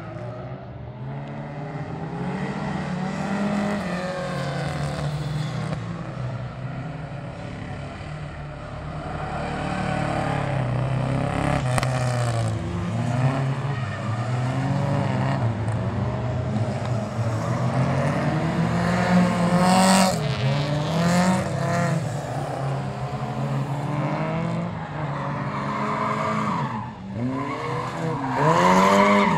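Rally car engines revving hard, rising and falling over and over with gear changes as the cars are thrown through tight turns, with tyres squealing at times.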